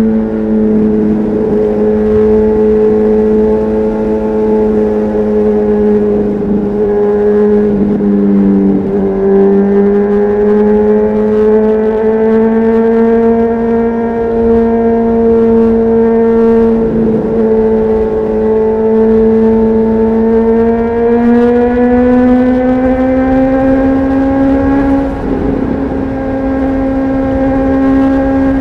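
Honda CBR600RR's inline-four engine breathing through an aftermarket Leo Vince exhaust, heard on board at speed. It holds a steady, high-revving note, dips briefly a couple of times, and climbs again near the end.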